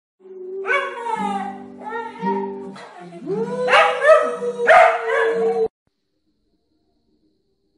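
A corgi howling and yipping in a string of short, falling cries, then a longer rising howl that holds, over background music with held notes. The sound cuts off abruptly about three-quarters of the way through.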